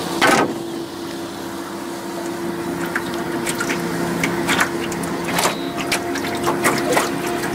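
A small motor on the aluminum boat humming steadily, with water slapping and knocking against the hull now and then.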